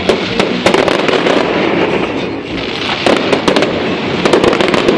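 Aerial fireworks going off: repeated bangs and rapid crackling of bursting shells, in clusters about half a second, three seconds and four and a half seconds in.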